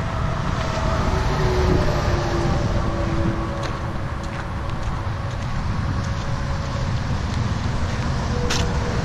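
Wind rumbling on the microphone over a faint steady hum, with a few light clicks of footsteps on a gravel path.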